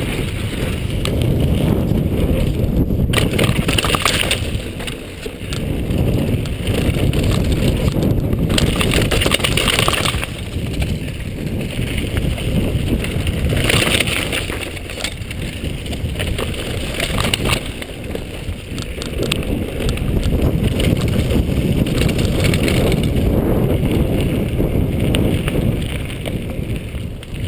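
Wind rushing over a chest-mounted action camera on a downhill mountain bike, with the tyres rolling over dirt, wooden planks and gravel and the bike rattling over bumps. The noise rises and dips every few seconds.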